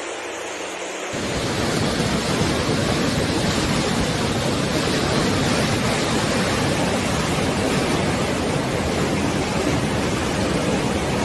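Roar of a fast, muddy floodwater torrent rushing down a street, a steady loud rushing noise that gets louder and fuller about a second in.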